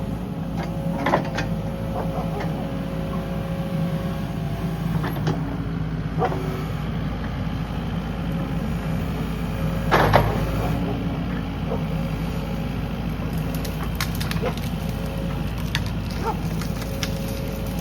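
Kubota KX080 mini-excavator's diesel engine running steadily under load while it pulls up brush and small trees, with scattered cracks and snaps of wood breaking, the loudest about ten seconds in.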